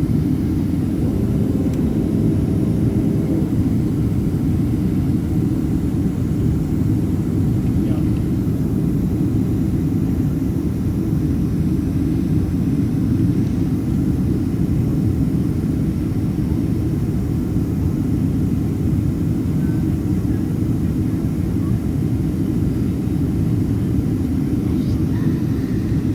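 Steady low roar inside the passenger cabin of a Boeing 767-300ER in flight: engine and airflow noise, unchanging in level.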